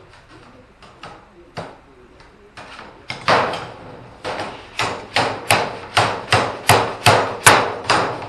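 A hammer beating a folded seam in a sheet of sheet metal flat on a plywood bench. A few light taps come first, then from about three seconds in there are steady hard blows, about three a second.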